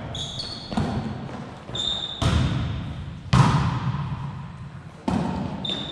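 A volleyball being struck during a rally: about four sharp hits that echo in a large gym, the loudest about halfway through. Short high squeaks of sneakers on the hardwood floor come between the hits.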